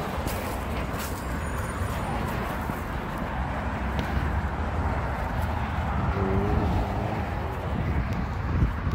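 Cars passing on a busy multi-lane road, a steady rush of tyres and engines.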